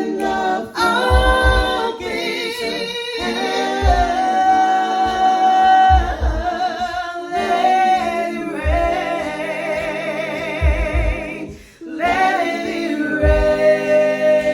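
A cappella gospel praise team singing sustained harmonies under a female lead, with low pulses repeating beneath the chords. The voices break off briefly about twelve seconds in, then come back in.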